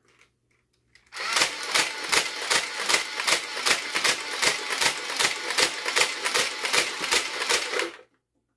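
Nerf Vulcan EBF-25 belt-fed blaster firing in full-auto, a steady mechanical clatter of about three shots a second as the ammo belt cycles through. It starts about a second in and stops just before the end, showing the rebuilt blaster works.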